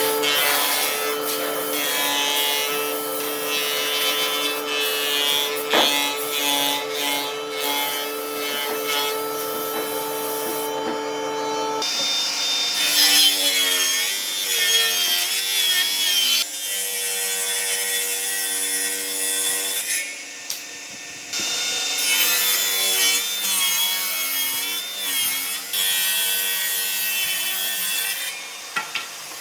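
Power tool cutting or sanding wood: a steady motor tone, then from about the middle its pitch wavers and dips as the tool bites into the wood, broken by several abrupt jumps between takes.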